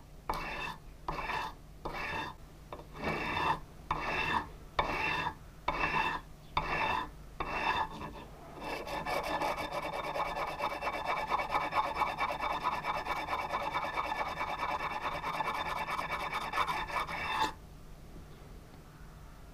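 A small metal piece rubbed by hand on sandpaper laid flat, a gritty scraping. It comes first as separate strokes about two a second, then as fast continuous scrubbing that stops suddenly near the end.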